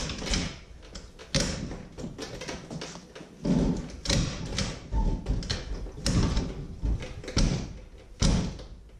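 Kickstart lever of a 150cc GY6 scooter stomped over and over, a string of clunks roughly once a second. No engine catches: the kickstart fails to start the engine.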